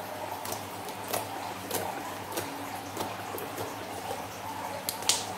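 Hands squeezing and poking slime, making wet squelches and sharp little clicking pops of trapped air, about one every half second. The loudest pop comes near the end.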